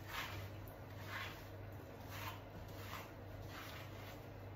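Hands rubbing and squishing lather through a wet puppy's coat, soft swishes about once a second, over a low steady hum.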